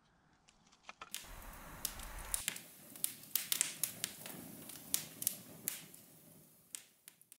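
Campfire of branches and logs burning, the wood popping and crackling in sharp irregular snaps over a steady hiss of flame. The fire sound comes up about a second in.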